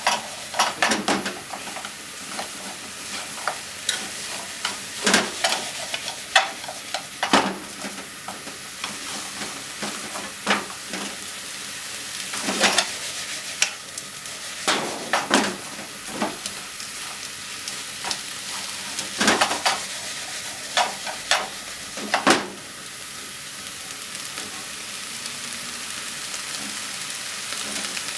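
Wiener sausages and vegetables stir-frying in a frying pan: a steady sizzle, with irregular clacks of chopsticks against the pan as the food is stirred. The clacking stops near the end, leaving only the sizzle.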